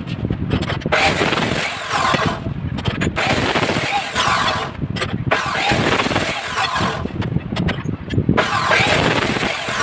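Abrasive cut-off wheel grinding through steel tube in repeated bursts of about a second and a half, about four in all, with short gaps between them.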